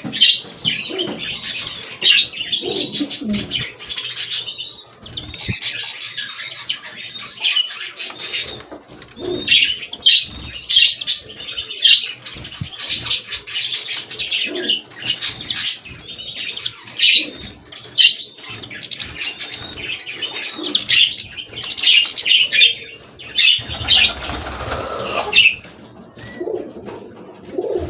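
Many caged wild finches, goldfinches among them, singing at once in quick, overlapping twittering phrases. Near the end a rushing noise lasts about two seconds.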